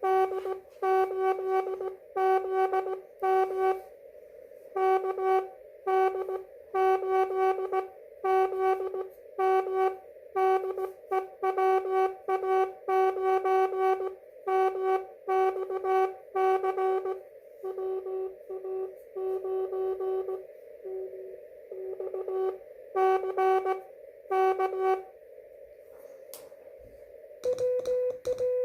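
Slow-speed Morse code (CW) on a ham radio: a low tone keyed on and off in dits and dahs over a steady hiss of band noise from the receiver. About a second before the end, a different, higher tone starts.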